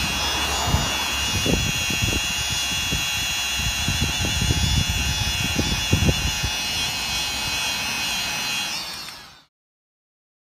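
Handheld power tool motor running steadily with a high whine over a low rumble, with a few knocks, fading out near the end.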